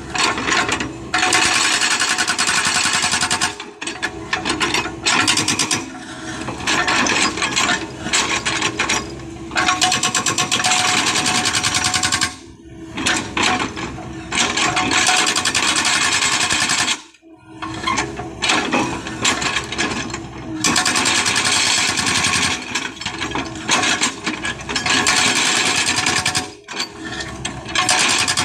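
Excavator-mounted hydraulic breaker hammering rapidly on hard adobe rock in long bouts, stopping briefly twice, about 12 and 17 seconds in.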